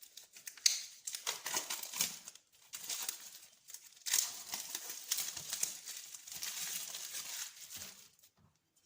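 Steel knife blade scraped across a whetstone in irregular strokes, making a rough, rasping noise.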